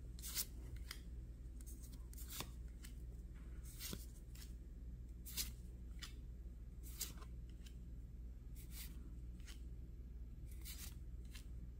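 Pokémon trading cards being slid one by one off a stack held in the hand, each card giving a short, faint swish about every one to two seconds, over a steady low hum of room tone.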